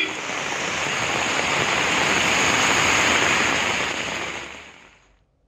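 Heavy rain pouring onto a flooded street: a steady rushing hiss that builds a little, then fades away about a second before the end.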